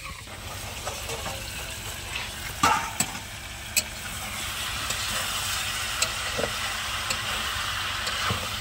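Chicken and potatoes sizzling as they fry in masala in an iron karahi, with a few sharp clicks of the spatula against the pan and a steady low rumble underneath. The sizzle grows a little stronger about halfway through.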